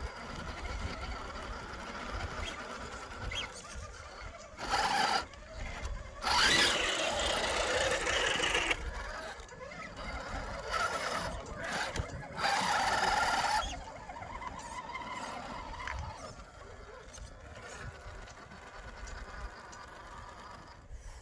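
Scale RC rock crawlers' electric motors and geartrains whining as the trucks climb a dirt and rock slope. There are three louder bursts of noise, about five, seven and thirteen seconds in.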